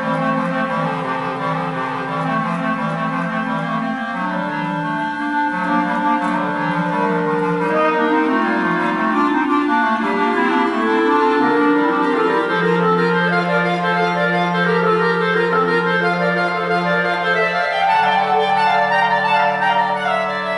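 Clarinet quartet of three clarinets and a bass clarinet playing together in harmony, several parts holding notes at once. In the second half a long low note is held beneath the upper parts.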